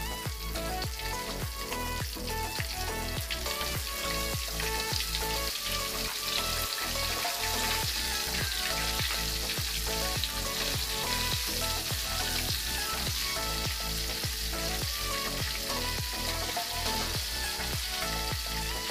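Battered chicken liver pieces sizzling steadily in hot oil in a wok, deep-frying over a low flame. Background music with an even beat plays underneath.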